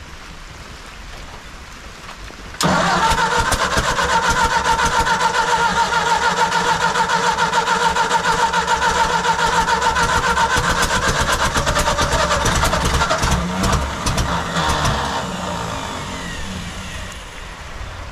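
Ford tractor engine turned over on its electric starter: a sudden start about two and a half seconds in, then a fast, steady, even cranking rhythm that eases off and gets quieter over the last few seconds.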